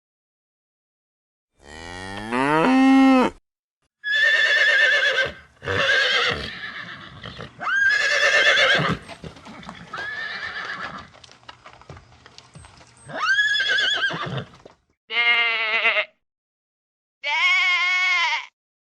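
A series of farm animal calls: separate pitched cries, some rising and some wavering, with short silences between them.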